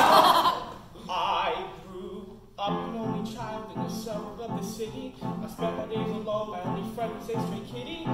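Male voice singing a musical-theatre number: a loud held note, then a short phrase with a wide vibrato, then steady repeated chords of accompaniment from about two and a half seconds in.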